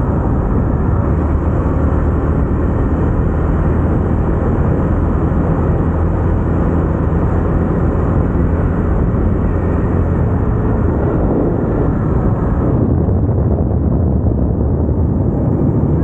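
KTM motorcycle engine running steadily at a constant cruising speed, mixed with wind and road noise.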